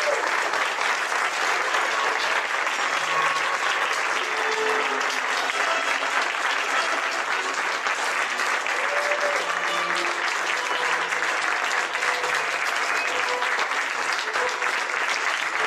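Audience applauding steadily, with a few faint voices mixed in.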